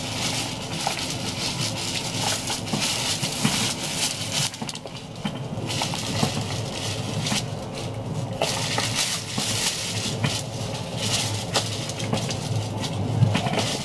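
Plastic wrapping crinkling in stretches as it is handled, with short pauses, over the steady low rumble of the train running.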